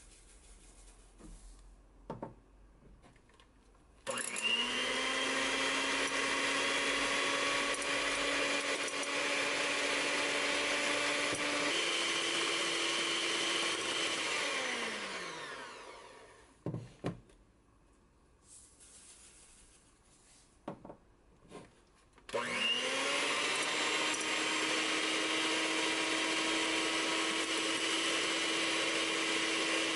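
Electric hand mixer whipping egg whites into meringue in a glass bowl. The motor spins up with a rising whine about four seconds in, steps up to a higher speed, then winds down. After a knock and a few quiet seconds it starts again and runs steadily.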